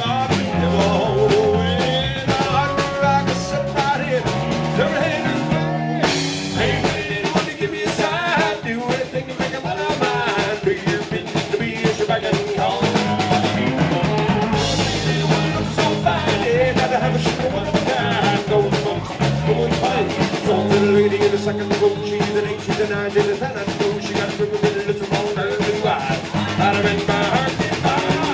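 Live rock band playing: electric guitar, electric bass and drum kit in a full, loud, continuous groove.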